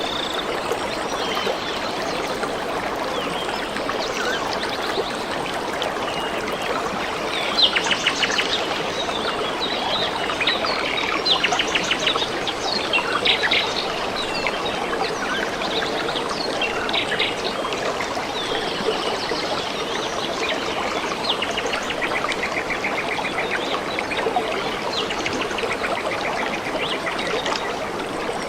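A stream running steadily, with small birds calling over it in quick, rattling trills that are busiest around the middle.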